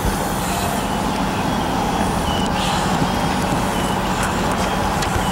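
Steady engine noise with a low hum, and a few short, faint high chirps.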